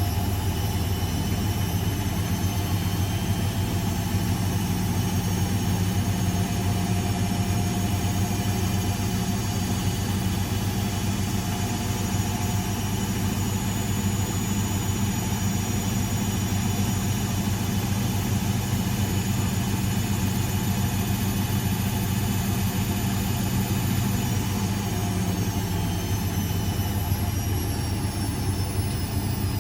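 Old Blomberg 240W washing machine running continuously, with a steady, deep motor hum and thin high whining tones. Near the end some of the high tones slowly fall in pitch.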